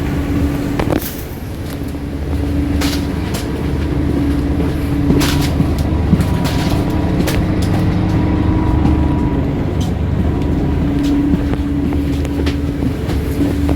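Coach engine running: a steady low rumble with a droning tone that comes and goes every few seconds, and scattered clicks and knocks.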